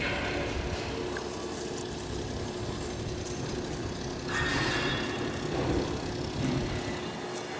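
Steady mechanical hum and background noise of a railway works, with a louder rushing noise joining about four seconds in.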